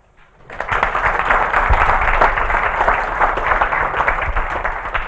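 Audience applauding, the clapping beginning about half a second in and holding at a steady level.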